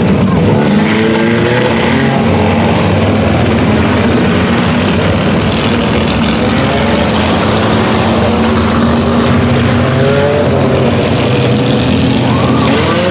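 A pack of Pure Stock and 4-cylinder dirt-track cars running laps together to work in the wet dirt track after a rain delay. Their engines run steadily, with revs rising and falling as individual cars pass.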